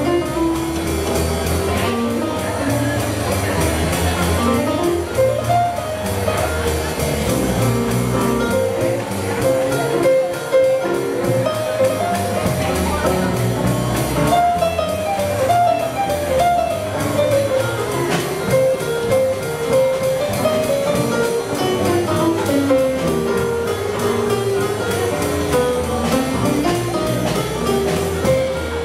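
Live swing jazz: a piano solo of quick running melodic lines played on an electric stage piano, with double bass underneath.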